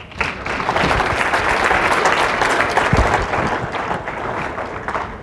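Audience applauding, swelling within the first second and thinning out near the end.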